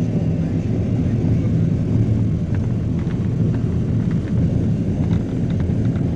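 All-terrain vehicle's engine running steadily while driving over lake ice, a constant low drone with wind and rumbling noise, and a few faint ticks.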